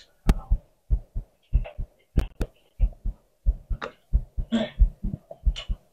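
A man chewing a mouthful of food: a quick run of soft low thumps, about four a second, with a few sharp clicks.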